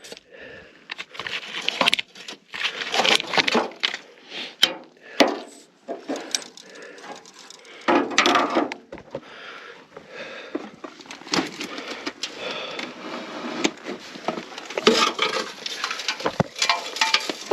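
Irregular rustling, scraping and clattering of dry debris and loose junk being moved by hand while an old drive-in movie speaker is fished out from among it, with louder bursts of knocking about three, eight and fifteen seconds in.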